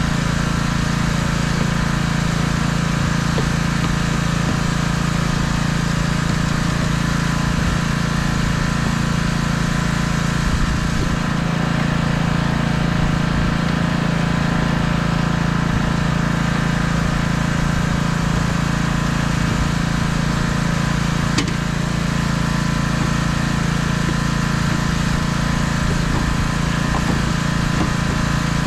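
Pressure washer's engine running steadily, with the hiss of water spraying from the wand.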